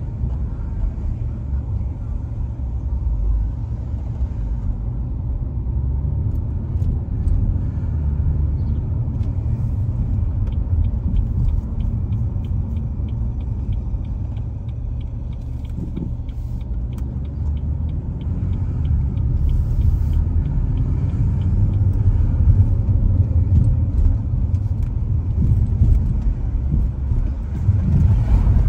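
Steady low rumble of a car driving slowly along city streets: road and engine noise.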